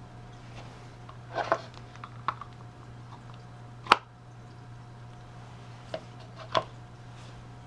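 Handling sounds of a Leatherman Sidekick multitool being slid into a stiff wet-molded leather belt sheath and the sheath set down on a wooden slab: a handful of short clicks, knocks and leather scuffs, the sharpest about four seconds in.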